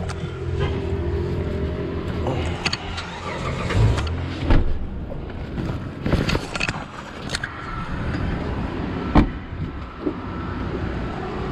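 Someone climbing out of a car's back seat: rustling and several sharp knocks, the loudest about nine seconds in, over a low steady vehicle hum.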